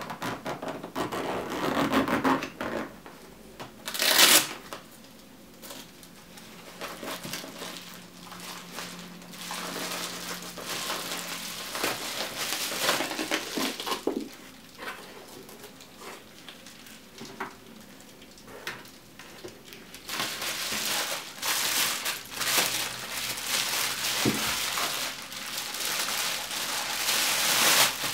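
Handling of a lens's packaging: a zipper on a padded fabric lens case drawn open, with one loud short rasp about four seconds in. Then bubble wrap crinkles and rustles as the wrapped lens is pulled out and unwrapped.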